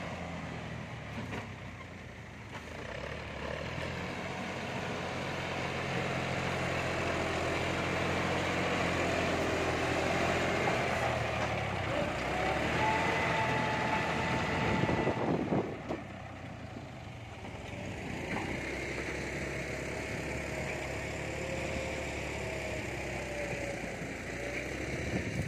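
John Deere 5310 tractor's three-cylinder diesel engine running under load as it pushes soil with a front dozer blade, with a higher whine over it that shifts in pitch. It drops in level about fifteen seconds in, then picks up again.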